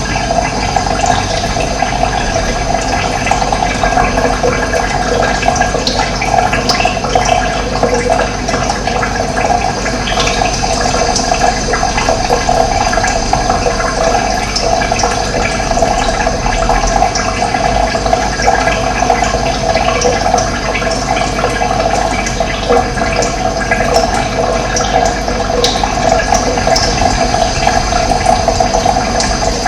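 Running water flowing steadily, a continuous gurgling rush.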